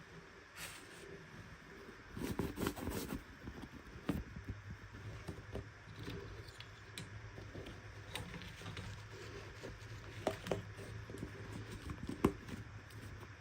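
Small plastic toys and packaging being handled: scattered light clicks and taps, with a burst of rustling and clicking about two seconds in, over a low steady hum.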